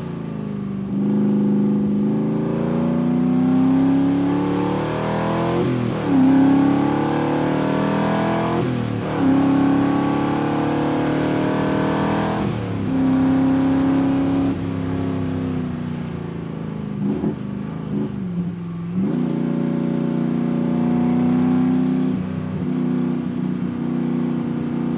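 A 1975 Cobra's engine pulling through the gears while driving. Its note climbs and then drops back at each gear change, several times over. Near the end it settles into a steady cruise.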